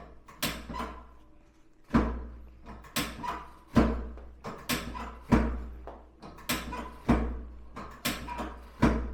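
About a dozen sharp thumps, each with a deep thud and a quick decay, coming irregularly every half second to a second.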